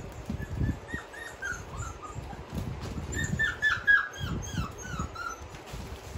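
5-week-old Australian Shepherd puppies whimpering and yipping: a string of short squeals that fall in pitch, coming thickest about three to five seconds in, over irregular low bumps.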